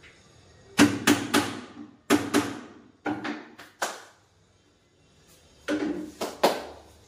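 Hammer blows on wood in quick runs of three or four, with a pause of about a second and a half near the middle.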